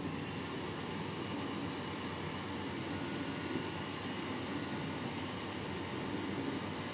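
Steady rushing machine noise with a faint high whine over it, setting in suddenly.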